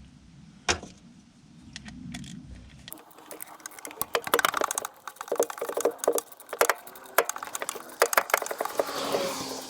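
Socket ratchet clicking in quick runs as the bottom alternator bolt is worked loose, starting about three seconds in after a quieter stretch with a single click.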